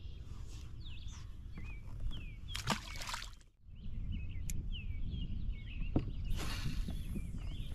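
Songbirds chirping and calling over a steady low rumble, with a short rushing noise about three seconds in and another near the end.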